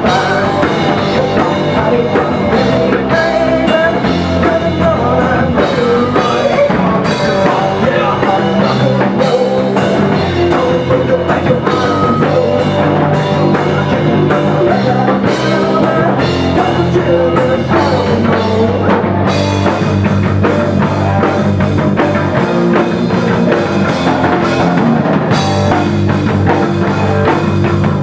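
Live rock band playing: electric bass, electric guitar and drum kit, with a man singing.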